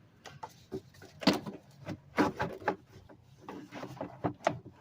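Irregular clicks, knocks and rubbing of things being handled and moved about, with the sharpest knocks a little over a second in and again around two seconds in.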